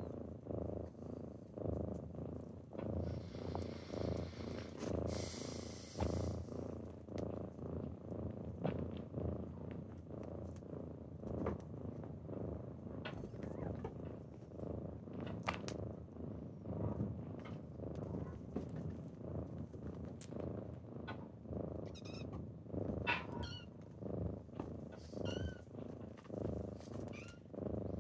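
Kitten purring, a steady low rhythmic pulse, with a brief hiss about three to six seconds in and a few short high squeaks near the end.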